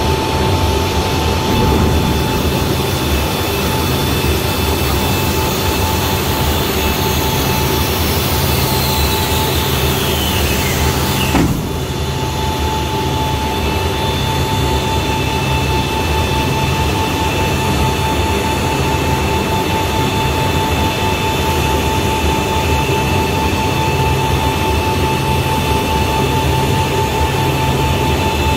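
Steady machinery drone with a high, steady whine from the powered equipment running a C-17's landing gear swing. About eleven seconds in, a whine falls in pitch and ends in a sudden sharp clunk.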